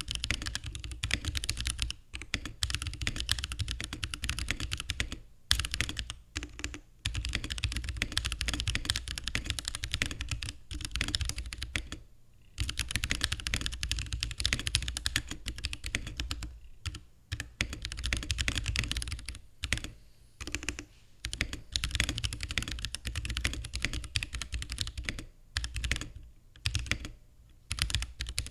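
Typing on a mechanical keyboard with lightly lubed Holy Panda tactile switches, in an acrylic case with a carbon fiber plate: rapid runs of key clacks broken by several brief pauses.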